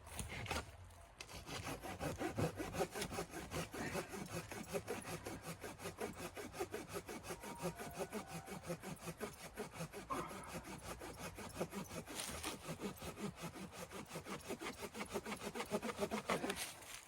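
Hand saw cutting through wood in fast, steady back-and-forth strokes, which stop abruptly near the end.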